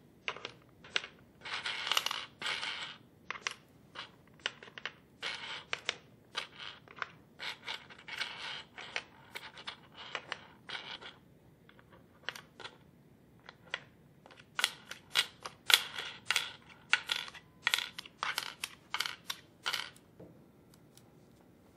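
Small plastic pegs clicking and clattering as they are picked one at a time from the dish of a nine-hole pegboard, pushed into its holes and then pulled out again: a quick, uneven run of sharp clicks mixed with short scrapes.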